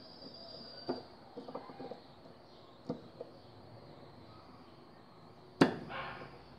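Scattered clicks and knocks of tools working on washing-machine transmission parts, trying to free a seized retaining clip, with one sharp, much louder knock near the end.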